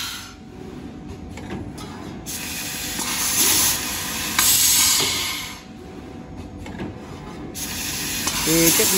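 Laser tube-cutting machine cutting steel tube: the cutting head hisses in two long bursts of about three seconds each, with quieter gaps between the cuts.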